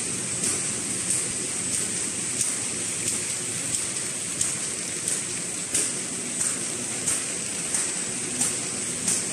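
Automatic twisted-rope-handle paper bag machine running: a steady mechanical noise with a high hiss, and a short sharp stroke repeating evenly about every two-thirds of a second as it cycles.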